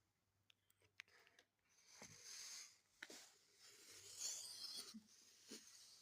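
Faint rustling and rubbing, with a few small clicks in the first second or so.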